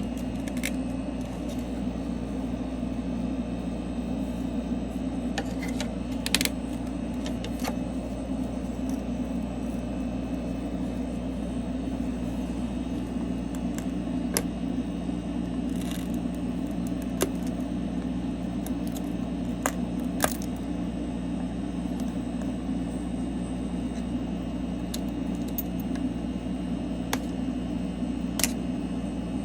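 Steady electrical machine hum from running repair equipment, with scattered sharp metallic clicks and ticks of small tools or glass pieces being handled, the loudest about six and twenty seconds in.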